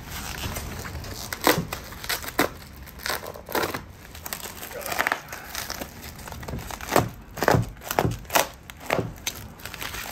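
Packing material crinkling and rustling as it is handled and pulled from a shipping box, with irregular sharp crackles that come thicker in the last few seconds.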